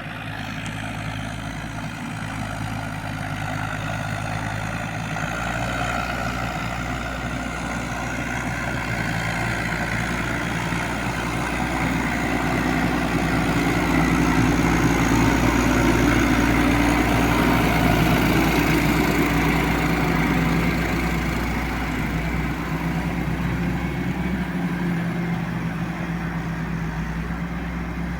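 New Holland TM115 tractor's diesel engine running steadily under load while pulling a plough. It grows louder toward the middle and fades somewhat near the end.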